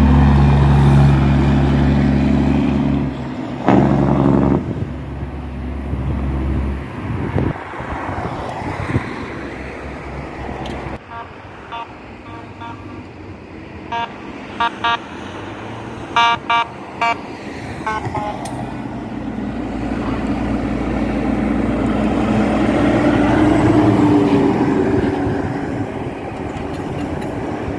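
A semi-truck's diesel engine passing close by, fading out after about seven seconds. Midway, a vehicle horn sounds a string of short toots. Near the end, another heavy truck's engine grows louder as it approaches.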